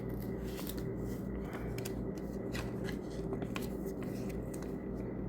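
Paper instruction leaflet rustling and crinkling as it is unfolded and handled, with irregular small crackles over a steady low hum.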